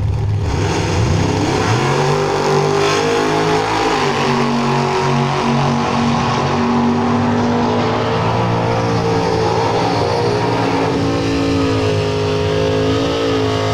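Two drag cars launching off the line and accelerating hard down the strip, engines revving with the pitch climbing, dropping about four seconds in, then climbing again.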